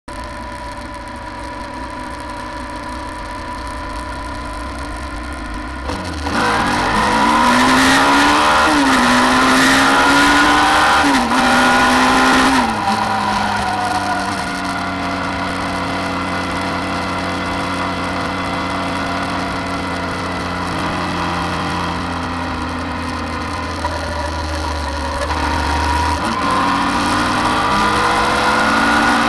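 Suzuki V-Strom 650 XT's V-twin engine pulling away through the gears: the pitch climbs and drops back at each of about three upshifts, then holds steady at cruising speed and climbs again near the end. Wind rush on the microphone runs under it.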